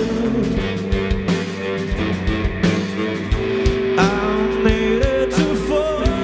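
Live rock band playing: electric guitar and bass chords over drums, with a male voice starting to sing about four seconds in.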